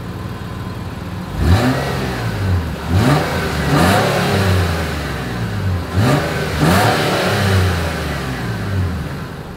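2024 Nissan Pathfinder's 3.5-litre V6 heard through its single-outlet exhaust, idling, then revved in about five quick blips, each rising and falling back. The blips come in a group of three and then a pair, and the engine settles back to idle near the end.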